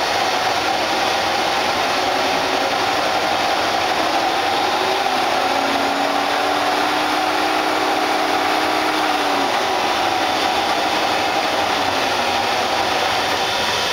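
Monarch 10EE lathe running with its spindle turning: a steady whir from the variable-speed DC drive with a constant whine. About five seconds in a lower hum rises, holds, and falls away again near ten seconds, as the spindle speed is changed.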